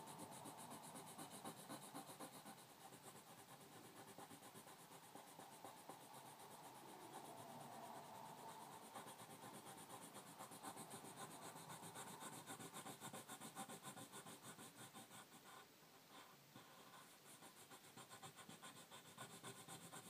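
Faint, rapid back-and-forth scratching of a graphite pencil on paper, shading an area in, with a brief pause about three-quarters of the way through.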